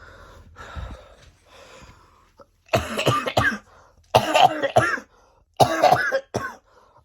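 A person coughing in three loud bouts about a second apart, each a quick cluster of coughs. It is a persistent cough on its 18th day, which he takes for a lingering "30-day cough".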